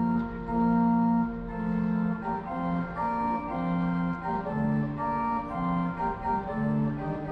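Organ music playing from the Ankeruhr (Anker Clock): a slow tune of held notes and chords, the music that goes with the clock's parading historical figures.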